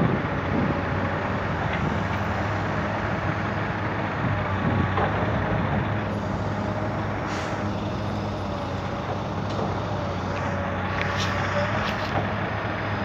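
Diesel engines of a Komatsu PC200 excavator and a Ford L9000 dump truck running steadily while the excavator works, with a wavering whine over the engine hum and a few short knocks in the middle and near the end.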